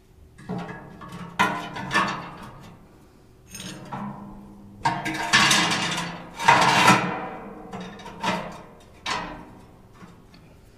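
Steel grill grate being set down and shifted inside a welded steel smoker firebox: a series of metal clanks and rattles, each ringing out briefly, the loudest in the middle.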